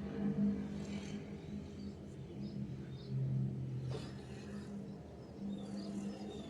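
A steady low motor hum, with short high chirps, like small birds, scattered over it and a single click about four seconds in.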